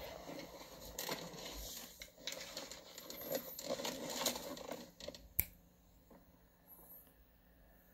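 Irregular rustling and scraping handling noise, ending in a single sharp click about five seconds in, after which it falls much quieter.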